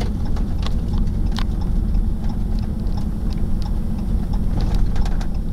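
Strong wind from the dust-laden gustnado rumbling steadily, with scattered sharp ticks and clicks through it.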